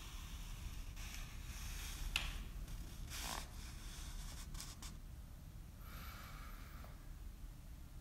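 Faint rustling as a person shifts on a fabric sofa, with a few short breaths over a low, steady room hum.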